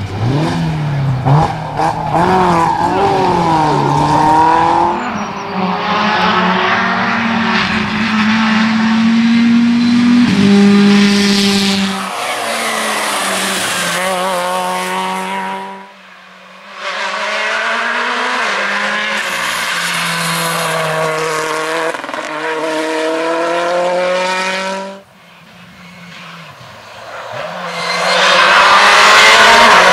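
Rally car engines driven hard through tarmac corners in a run of short clips, the pitch climbing and dropping with gear changes and lifts off the throttle. The last clip, an R5-class rally car approaching, is the loudest.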